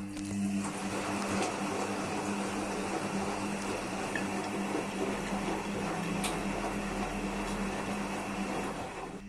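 IFB washing machine running a rinse-and-spin program: a steady machine hum over an even rushing noise, with a faint click about six seconds in.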